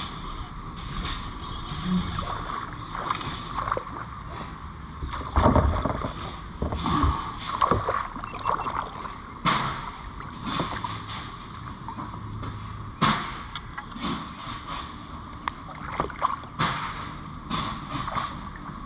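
A hooked peacock bass being fought to a kayak: water splashing and sloshing as the fish thrashes near the surface, with irregular knocks and clicks throughout.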